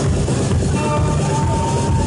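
Loud techno played over a club sound system, with a pulsing heavy bass beat and a held high synth note on top.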